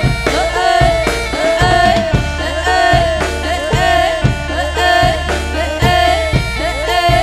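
Loud jaranan dance music: a steady drum beat about twice a second under a sliding melodic line, with a deep bass.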